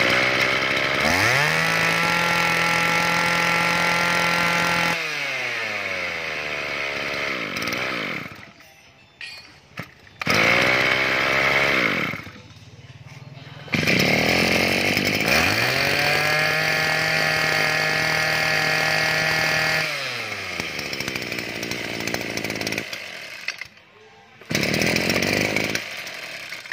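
Small two-stroke brush cutter engines of the 23 cc Maruyama class, serviced and running well. Twice an engine revs up to a steady high speed for several seconds, drops back to idle and stops. Shorter runs come between and near the end.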